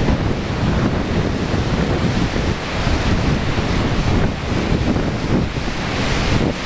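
Storm waves breaking and churning on a lake beach, with strong wind buffeting the microphone in a steady, dense rush.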